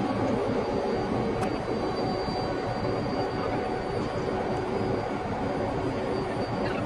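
Nickel Plate Road #514 diesel locomotive's engine idling steadily, with a faint constant high whine over it.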